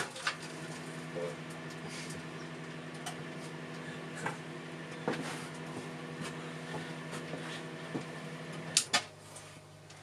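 Old microwave oven running with a steady hum, with scattered clicks and pops from the eggs and CD heating inside. Nearly nine seconds in a sharp click comes and the hum drops away as the oven stops.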